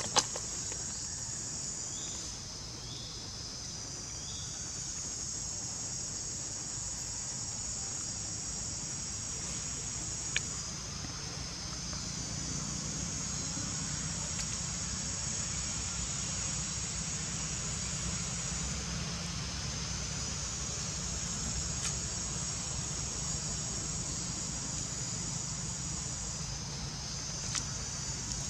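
A steady, shrill chorus of insects, several high tones layered together, swelling and easing off a few times. Sharp clicks sound right at the start and again about ten seconds in.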